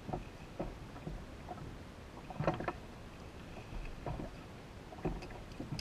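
Water slapping and splashing around a small boat's hull, in irregular short knocks, the loudest about two and a half seconds in.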